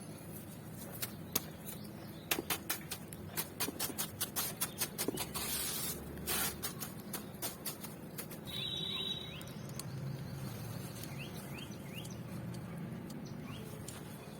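Dry charcoal blocks crumbling and snapping by hand: a run of crisp cracks, about three a second, with a longer scratchy crunch partway through. A brief high squeak follows, then a few faint squeaks.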